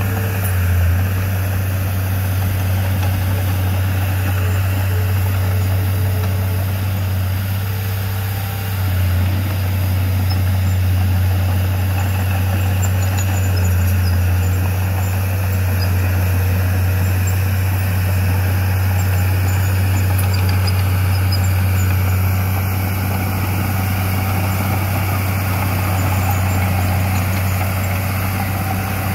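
Crawler bulldozer's diesel engine running as the blade pushes soil, a steady low drone.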